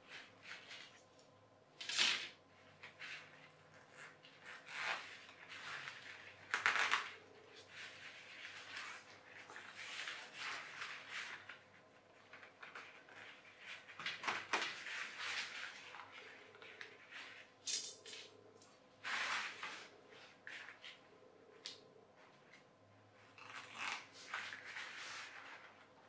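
Stunt kite being reassembled on a wooden floor, played back sped up: rustling of the sail fabric and clicks and knocks of fibreglass rods pushed into PVC-hose connectors, in short irregular bursts.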